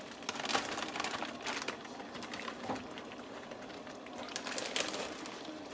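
Frozen mixed vegetables poured from a plastic bag into a metal skillet, the small hard pieces landing in a rapid stream of clicks and rattles, with the bag crinkling.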